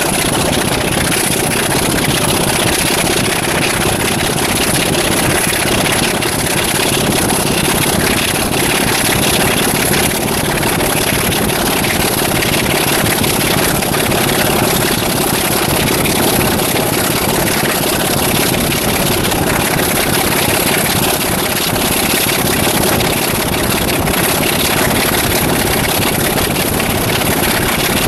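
Class 26 diesel locomotive's Sulzer 6LDA28 six-cylinder engine working hard under power, heard from an open window of the coach behind it, a loud, steady thrash.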